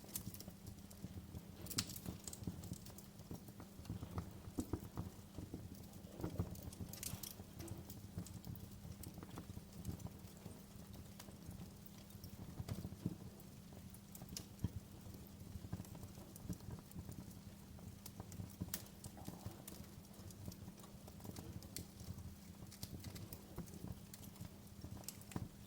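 Wood fire crackling in a fireplace: irregular sharp pops and snaps over a low steady hum.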